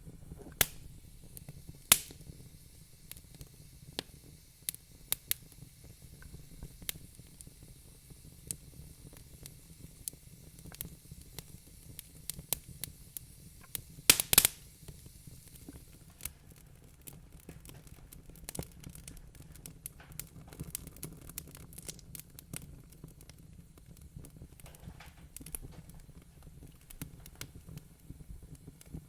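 Wood fire crackling in a fireplace: scattered sharp pops and snaps over a low steady rumble, with a quick cluster of loud pops about halfway through.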